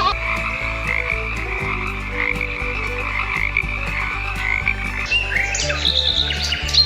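Frogs croaking in a dense, continuous chorus; about five seconds in it gives way to high bird chirps.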